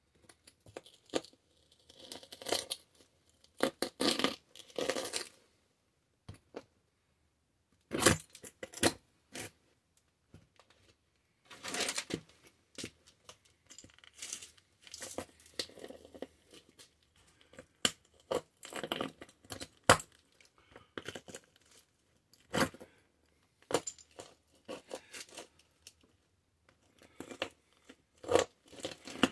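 Cowboy boot grinding a small diecast metal and plastic toy tractor against a concrete floor: irregular crunching, crackling and scraping of metal and plastic fragments, with short pauses between.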